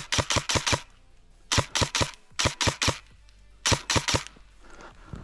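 Airsoft rifle replica firing in quick strings of sharp shots: four groups of three to five shots at about five a second, with short pauses between the groups.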